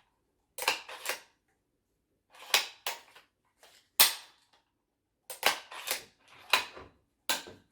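The action of a Savage Axis II compact bolt-action rifle being worked by hand. A run of about ten sharp metallic clicks and clacks, the loudest about four seconds in, which the owner finds kind of weird.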